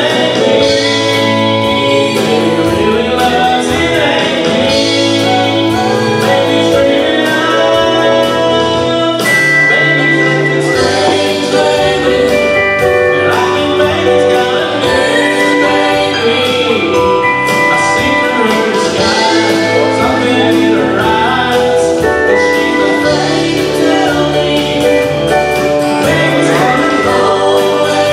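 Live country band playing a song, with a man singing lead over drums, bass, keyboards and steel guitar.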